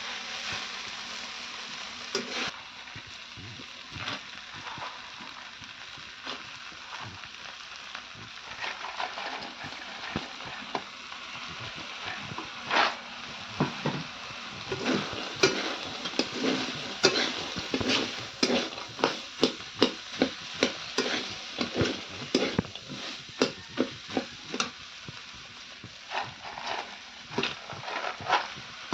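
Potato and chickpea sabzi sizzling as it fries in a pan, stirred with a spoon. The spoon scrapes and clicks against the pan, several times a second in the second half.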